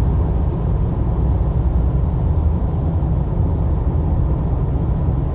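Steady low road and engine rumble inside a car cruising on the highway.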